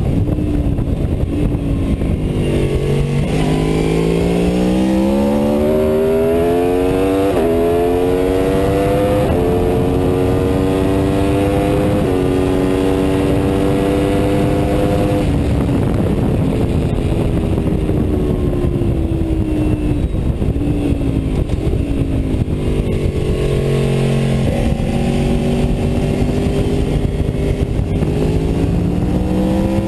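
Aprilia Tuono V4 motorcycle's V4 engine at full acceleration: its pitch falls as the bike slows, then climbs through three quick upshifts, each a short step down in pitch. Past the middle the revs fall away through downshifts for a slow corner, then it accelerates hard again near the end, all over heavy wind rush on the microphone.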